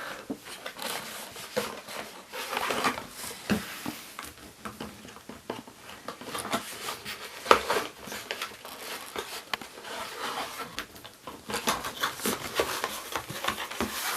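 Crinkling and rustling of wrapper packaging being handled, with many small irregular clicks and taps.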